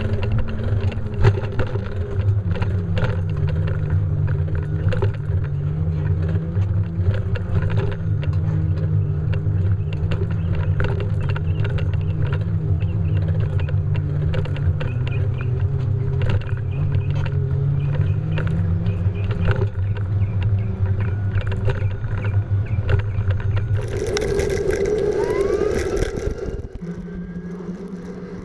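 Riding noise from an e-bike: a steady low rumble with frequent rattles and knocks over rough, cracked pavement. About 24 seconds in comes a louder rushing noise, and after it the sound drops quieter, leaving a steady low tone near the end.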